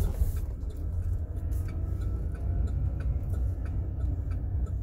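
GMC Savana van's turn-signal flasher ticking evenly, about two clicks a second, over the low rumble of the engine and tyres heard inside the cab as the van rolls slowly.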